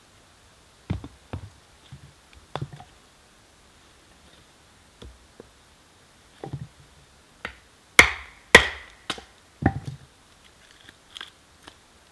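Firewood being split on a stump chopping block: irregular hand-tool strikes into wood, with the two loudest sharp cracks coming about eight seconds in, half a second apart.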